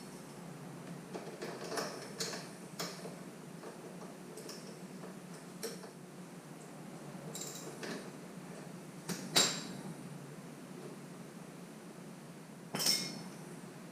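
Metal hand tools clinking and tapping against metal fittings as an 8mm socket wrench is used to remove bolts: scattered light clicks, with a sharper clink about nine seconds in and another near the end.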